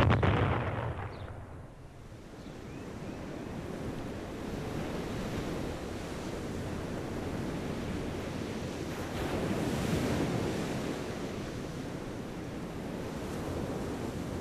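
A deep rumble dies away over the first two seconds, leaving a steady rushing wash of surf and wind that swells and eases slowly, loudest about ten seconds in.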